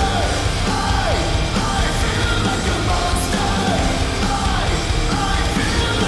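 Hard rock song with heavy, distorted music, drums and shouted vocals.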